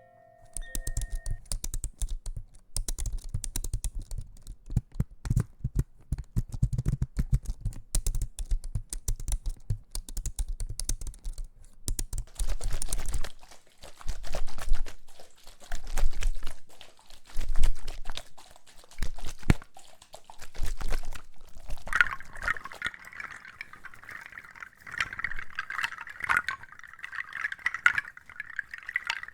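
Close-miked ASMR trigger sounds: dense crackling and clicking for the first half, then scattered clicks, and from about two-thirds in a steady wet hiss with crackles over it, like liquid fizzing.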